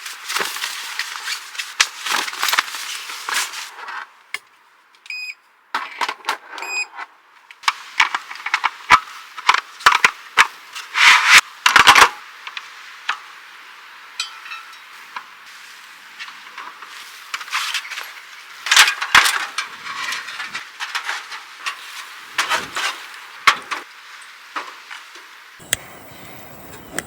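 Camping gear being handled and set up: a run of sharp clicks, knocks and clattering, loudest in a cluster of strikes about nine to twelve seconds in, with two brief high tones around five and seven seconds in.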